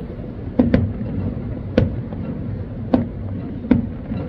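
Aerial fireworks exploding: five sharp reports, the first two close together about half a second in, then roughly one a second, over a steady low rumble.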